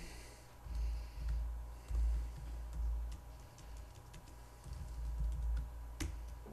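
Typing on a laptop keyboard: scattered soft key clicks with low thuds, and one sharper click about six seconds in.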